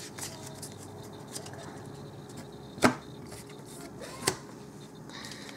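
Magic: The Gathering cards being handled on a tabletop: two sharp taps about a second and a half apart, with a few fainter ticks, over faint room hiss.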